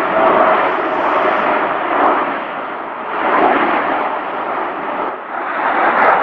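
Loud rumbling roar of military jet engines, swelling and easing several times, with no sharp bangs.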